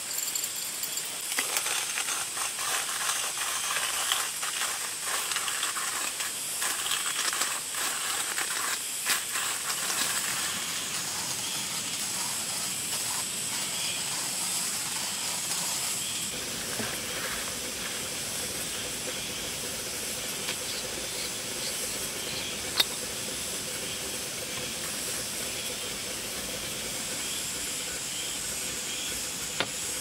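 Coffee beans being cranked through a hand coffee grinder: a dense, irregular crunching and crackling. About halfway through it gives way to the steady hiss of a gas camp stove burner heating a kettle.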